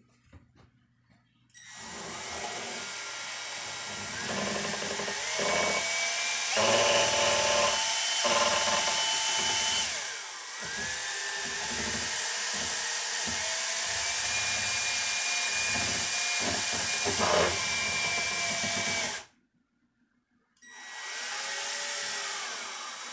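Handheld power drill spinning a paddle mixer to stir epoxy resin in a plastic mixing bucket. The motor whine shifts in pitch as the trigger speed changes, easing off and spinning back up about halfway through. It stops for about a second and a half near the end, then starts again.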